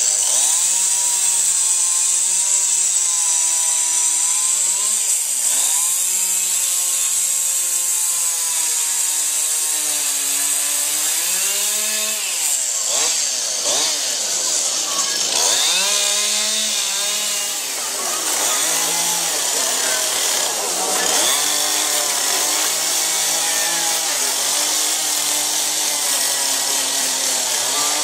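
Small Stihl carving chainsaw with a 30 cm bar cutting into a pear-wood board. Its engine pitch rises and falls as the throttle is worked, dropping away briefly several times before revving back up.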